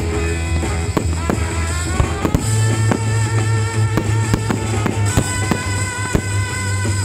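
Fireworks bursting in quick, irregular bangs and cracks, many a second, over loud music with a heavy steady bass.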